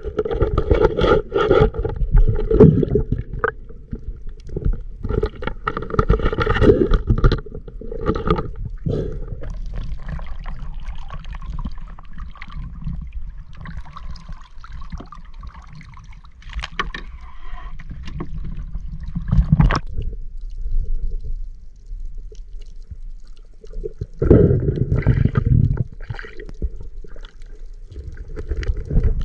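Muffled water gurgling and sloshing picked up by a camera held underwater. It comes in loud, irregular bursts with quieter rumbling stretches between.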